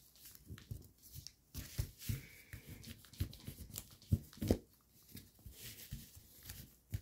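Origami paper being folded and creased by hand on a tabletop: soft, irregular rustles, crinkles and scrapes, with two louder knocks about four seconds in.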